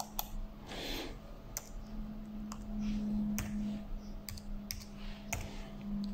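Irregular clicks of a computer mouse and keyboard, about a dozen scattered sharp clicks, over a steady low hum.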